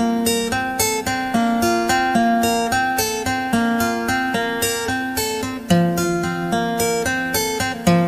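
Background music: plucked acoustic guitar playing a steady, rhythmic pattern.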